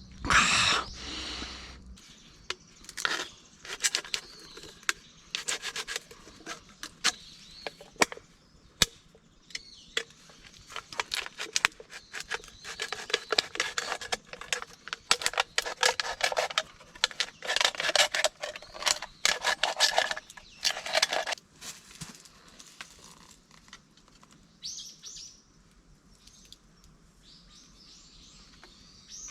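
A long run of rubbing, scraping and clicking handling sounds, densest in the middle and stopping about two-thirds of the way through, followed by birds chirping near the end.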